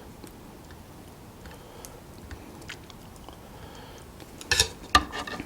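Close-up eating sounds: soft chewing with scattered small mouth clicks, then two loud bites about half a second apart near the end.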